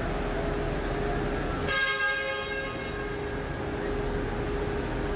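A bus horn sounds once about a second and a half in, a single held honk that rings on and fades in the echo of the covered concrete terminal. A steady hum runs underneath.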